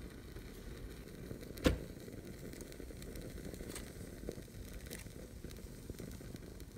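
Small fuel flame burning in a miniature barbecue grill, a faint steady crackle. A sharp metallic clack about a second and a half in as a wire grill mesh is set down on it, then a few light clicks.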